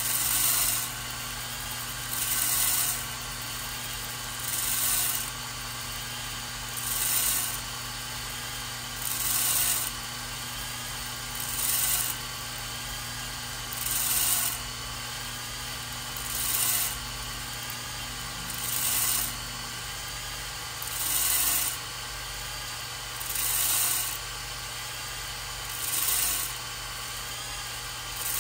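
Electric drill spinning a flex hone in an engine cylinder bore, stroked up and down to cut a cross-hatch in the cylinder wall. A hissing, rubbing swell comes round steadily about every two and a half seconds over the drill's constant running.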